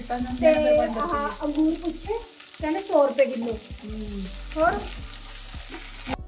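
Okra and onions frying in an aluminium pan while a metal spatula stirs and scrapes them: a sizzle with squeaky scraping glides and light knocks against the pan. The sound cuts off suddenly just before the end.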